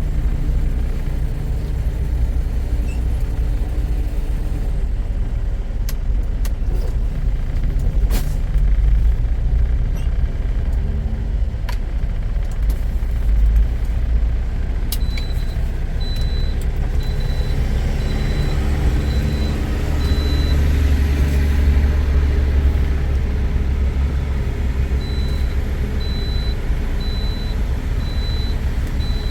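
Tractor-trailer driving, heard from inside the cab: a steady low engine and road rumble. A few sharp clicks come in the first half, and a high-pitched beep repeats about one and a half times a second in two runs, from about halfway and again near the end.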